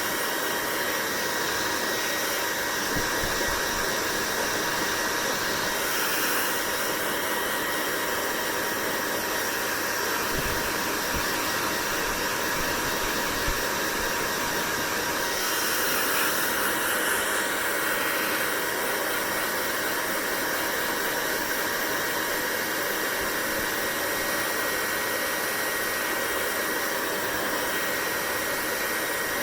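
Hair dryer running steadily, a constant rush of blown air with a faint steady whine.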